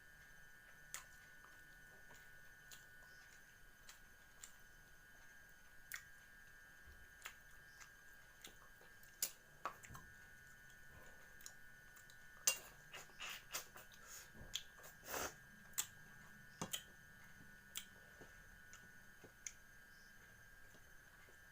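Faint, scattered sharp clicks and crunches, thickest around the middle, over a steady high-pitched drone.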